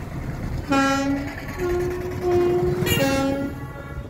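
Horn blasts: a short loud blast about a second in, a softer, longer tone of a different pitch after it, then another short loud blast near three seconds in. A steady low road rumble runs underneath from the car driving on a dirt road.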